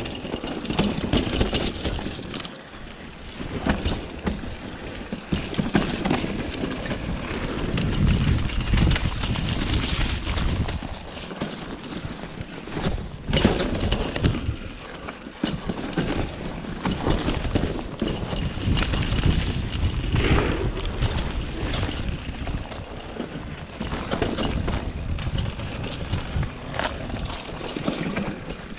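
Mountain bike riding fast down a rough dirt trail, heard from a chest-mounted camera: tyre noise on dirt, with the bike rattling and knocking over bumps and wind buffeting the microphone, the level swelling and dropping as speed changes.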